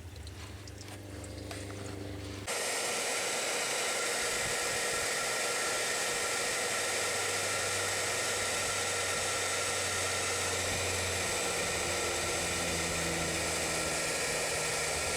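Handheld hair dryer switched on about two and a half seconds in, then running steadily with an even blowing hiss and a faint steady whine. It is blowing hot air on a frozen rain barrel valve to melt the ice.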